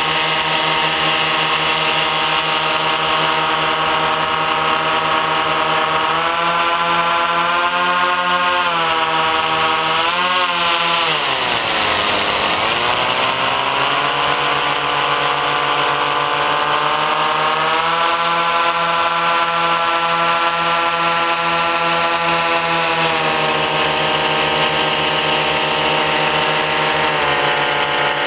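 Remote-control blimp's propeller motors running loud, a steady buzz whose pitch follows the throttle. It rises about six seconds in, dips sharply and climbs back around twelve seconds, rises again a little later, then drops twice near the end.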